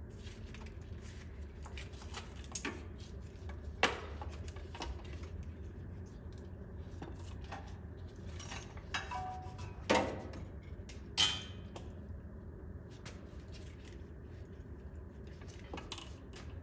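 Scattered metal clinks and clanks of tools and parts being handled, the loudest about four, ten and eleven seconds in, over a steady low hum.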